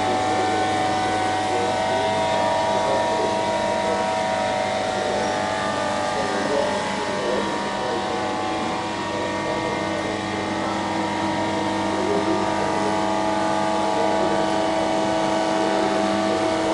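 Hydraulic pump of a Lancaster undercarriage test rig running steadily with a constant drone of several fixed tones, powering the jacks that break and make the main gear leg's geometric lock as the leg retracts and extends.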